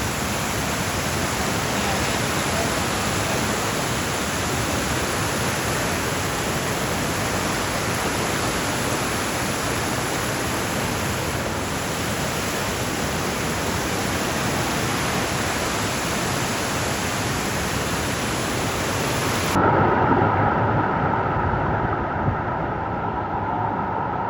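Steady, even roar of a waterfall, falling water rushing without a break. About twenty seconds in, it cuts abruptly to a louder rush with a steady hum in it.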